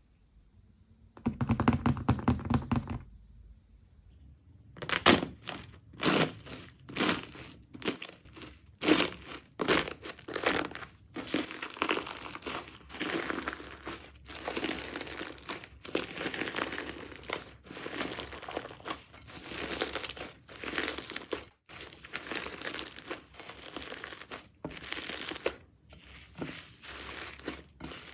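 Hands squeezing and kneading jelly slime: a short squish about a second in, then after a brief pause a long run of irregular crackling, squelching pops.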